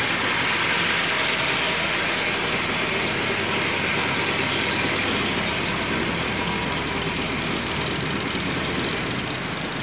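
Mitsubishi 4D30 four-cylinder diesel engine idling steadily.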